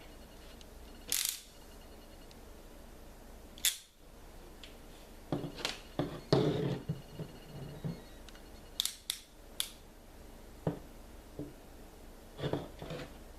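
Scattered sharp clicks and short handling noises from a ratcheting wire crimper being handled and worked, with three quick clicks in a row about nine seconds in.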